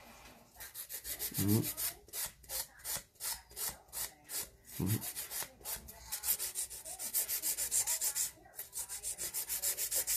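A hand nail file rasping back and forth across a fingernail in quick, even strokes, several a second, shaping the nail.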